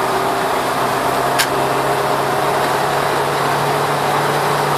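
Mitsubishi 4G63 8-valve SOHC four-cylinder engine on a Weber 32/36 DGV carburettor, heard from inside the van's cabin, pulling under full load with the secondary barrel cracked open as the revs climb slowly from about 3000 towards 4000 rpm. The mixture is leaning out and the engine is starting to miss; the owner later traced the leaning to low fuel pressure.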